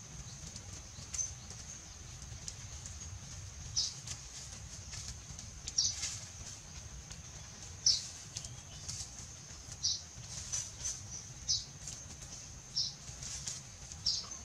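Forest insects droning on one steady high pitch, with short high-pitched squeaks or chirps every second or two.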